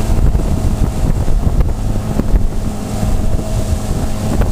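Outboard motor running at a steady high speed, with wind buffeting the microphone and water rushing in the wake.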